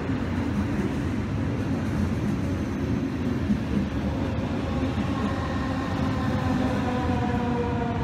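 DB Class 425 electric multiple unit pulling into the platform, its wheels rumbling steadily. From about five seconds in, a whine from its electric traction drive falls slowly in pitch as the train brakes toward a stop.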